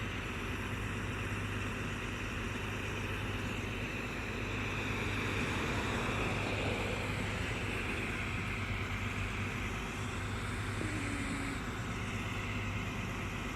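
Road traffic noise over a low steady hum, with a vehicle passing by that swells and fades between about four and nine seconds in.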